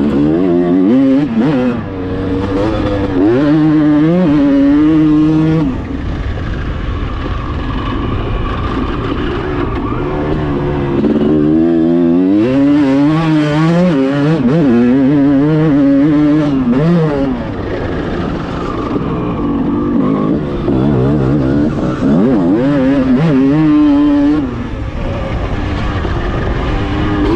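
Honda CR250's single-cylinder two-stroke engine revving hard under a rider on a motocross track: repeated bursts of full throttle, the pitch climbing and holding, then dropping back when he shuts off, three times over.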